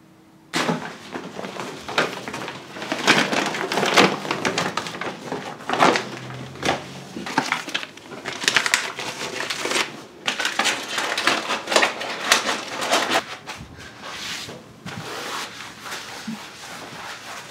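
Plastic bags and food containers rustling, crinkling and clattering as they are handled and moved about in a refrigerator. It starts suddenly about half a second in.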